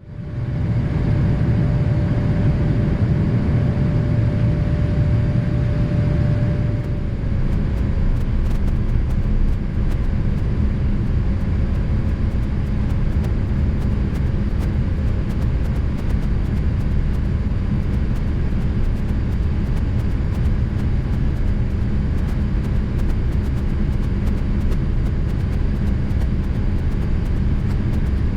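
Cabin noise aboard a Boeing 787-10 airliner during its landing: a steady low rumble, with a faint held tone that fades away. From about seven seconds in, faint light ticks come through the rumble.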